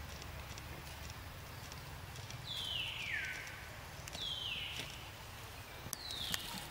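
Macaque squeals: three high calls, each falling in pitch, the first the longest. A couple of sharp clicks come near the end.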